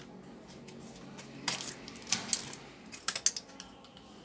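Sharp plastic clicks and knocks of a mains plug being handled and pushed into a power strip: a few single clicks, then a quick cluster about three seconds in, over a faint steady hum.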